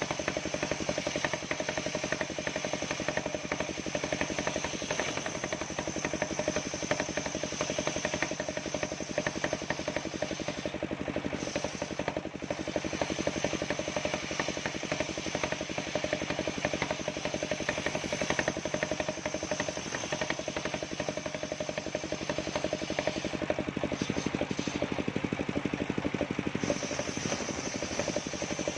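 Engine-driven circular sawmill running steadily, its motor chugging rapidly under a constant high whine from the spinning blade.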